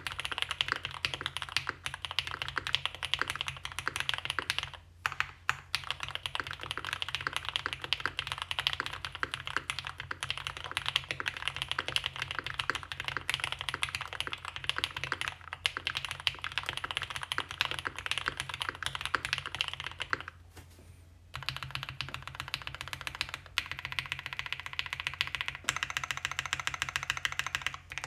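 Fast typing on a Mode 80 mechanical keyboard with lubed, filmed Cannonkeys Lavender linear switches on a POM plate and GMK keycaps: a quick, even stream of keystrokes. It breaks off briefly about five seconds in, and again for about a second around twenty seconds in.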